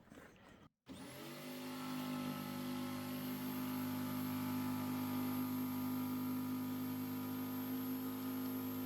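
A motor starts about a second in, spins up briefly with a faint high whine, then runs steadily with an even hum.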